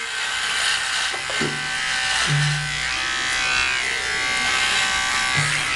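Electric shaver buzzing steadily as it is run over a beard and moustache.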